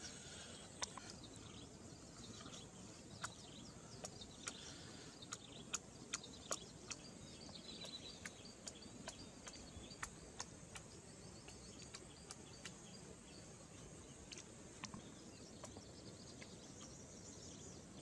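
Faint outdoor ambience: a low steady background hiss with bird chirps and scattered sharp clicks.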